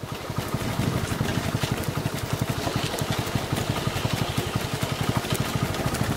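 Small engine running at a steady low speed with a rapid, even beat.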